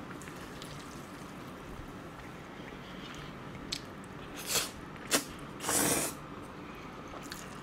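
A man slurping spicy cold noodles: a few short slurps and a click from about four seconds in, then one longer slurp just before six seconds, over a steady low hum.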